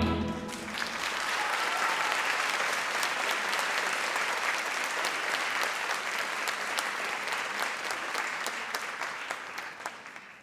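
Theatre audience applauding steadily, with single claps standing out, dying away near the end.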